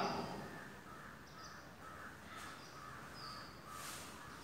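Faint bird calls in the background, with a few short high chirps among them.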